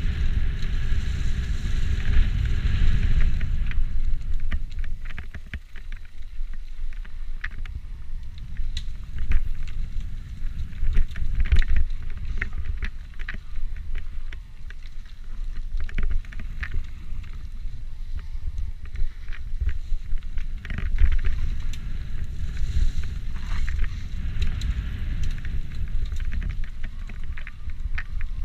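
E-mountain bike riding a rough dirt singletrail: wind buffeting the microphone, tyres rolling over the ground, and a steady stream of clicks and rattles from the bike jolting over roots and stones. It gets louder and hissier near the start and again about three-quarters of the way through.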